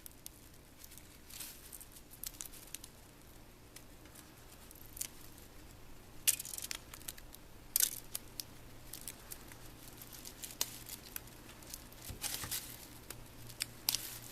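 Small clicks, taps and brief crinkling scrapes of thin plastic layers and small parts from a Palm Pilot's screen assembly being peeled and handled by hand. Two sharp clicks stand out a little past the middle, and a longer scrape comes near the end.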